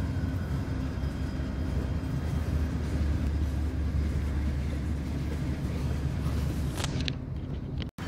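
Freight train cars rolling past on the track: a steady low rumble of wheels on rail. The sound cuts out abruptly for a moment near the end.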